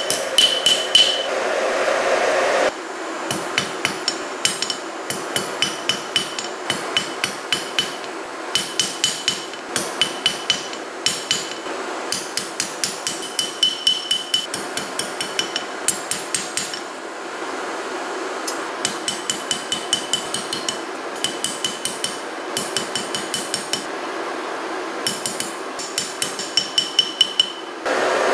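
Hand hammer striking a red-hot steel sword blade on an anvil, about three blows a second in runs with short pauses, many blows leaving a bright metallic ring.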